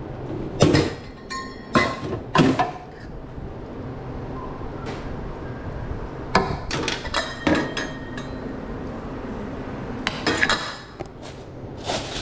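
Irregular sharp metal clinks and knocks of a hot dog vendor's utensils and cart lids being handled, a few of them ringing briefly.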